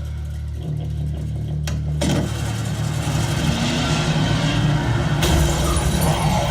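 Action-movie soundtrack: a low sustained drone, then from about two seconds in a loud, dense rush of noise that sounds like a car engine running and revving.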